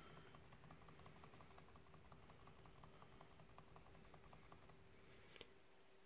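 Faint, rapid, even tapping on the Acer Predator Helios 300 laptop keyboard: the F2 key pressed over and over during boot to get into the BIOS setup, with one sharper click near the end.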